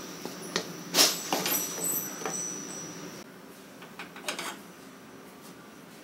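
Wooden spatula scraping and knocking against a nonstick pan of stir-fried noodles, with the sharpest knock about a second in and several more over the next second. A faint hiss fades out about three seconds in, and a few more clatters follow around the four-second mark.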